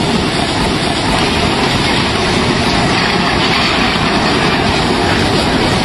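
Flash floodwater rushing through a street: a loud, steady rushing roar.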